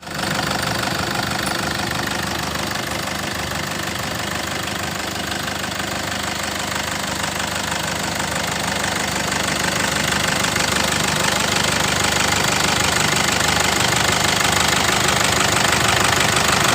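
Car diesel engine running at idle with a steady diesel clatter, growing a little louder from about halfway.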